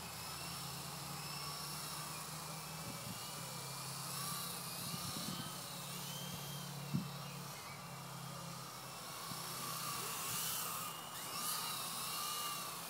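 Electric radio-controlled model helicopter in flight: its motor and rotors whine, the pitch rising and falling as the throttle is worked. There is one sharp click about seven seconds in.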